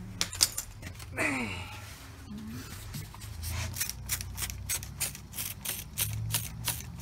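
A trigger spray bottle pumped rapidly, about four squirts a second, spraying soapy water over a freshly plugged truck tire to check it for leaks. A brief falling tone comes about a second in, and a steady low hum runs underneath.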